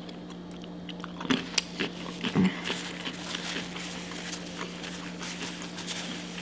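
Close-miked chewing of a crunchy pickle, with a few sharp crunches and mouth clicks in the first couple of seconds, then rustling of a paper napkin. A steady low hum runs underneath.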